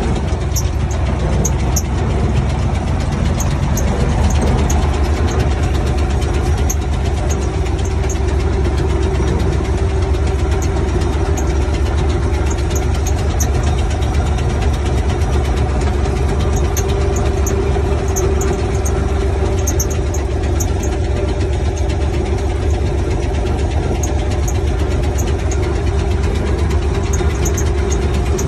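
Farm tractor's diesel engine running steadily, heard from inside the cab, with faint high ticking rattles coming in clusters now and then.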